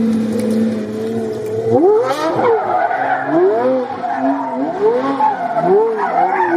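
A sports car's engine running at steady revs, then revved up and down over and over from about two seconds in, each rev a quick rise and fall in pitch.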